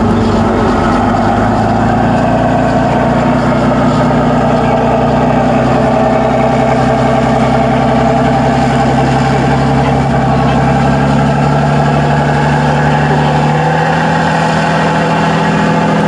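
Tatra 813 8x8 trial truck's diesel engine running steadily under load as the truck climbs a steep dirt slope, its pitch stepping up slightly near the end.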